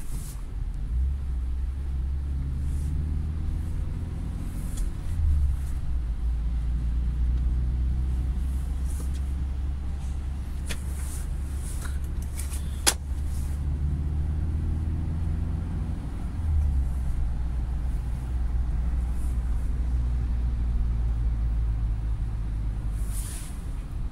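Inside the cabin of a 2019 UAZ Patriot on the move, its ZMZ Pro four-cylinder petrol engine and the road noise make a steady low drone. The drone shifts twice, and there is one sharp click about halfway through.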